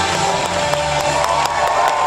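Music coming to its end, the bass dropping out about halfway while one high note is held, as the crowd starts cheering.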